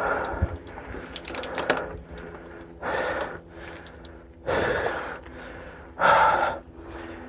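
A mountain biker breathing hard from exertion, heavy gasping breaths about every one and a half seconds, with a short spell of rattling clicks between the first and second breaths.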